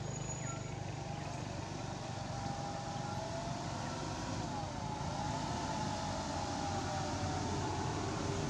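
A distant motor engine running steadily under a hiss, its pitch wavering up and down, and growing slightly louder toward the end.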